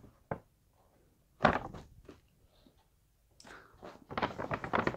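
Brown kraft-paper shopping bag rustling and crinkling as it is handled, in short bursts: a click just after the start, one crinkle about a second and a half in, and a run of rustles near the end.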